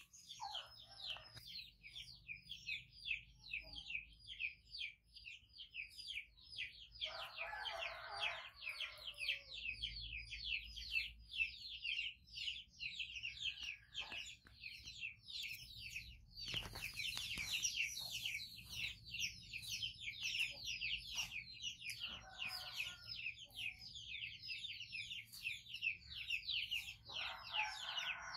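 Birds chirping steadily: a fast, unbroken run of short high chirps, several a second, with a few lower, clucking calls now and then.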